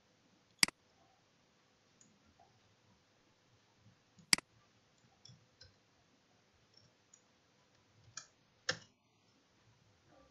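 Computer mouse clicks and keystrokes: two sharp clicks a few seconds apart, a few faint taps, then two more clicks close together near the end.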